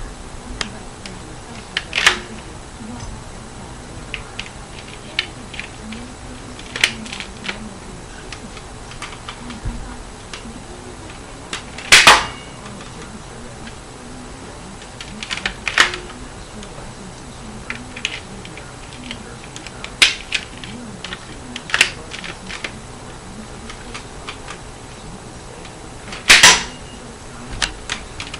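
Custom LEGO bolt-action rifle mechanism being worked: scattered light plastic clicks and clacks, broken by about seven sharp loud snaps at uneven intervals. The two loudest snaps come about twelve seconds in and near the end.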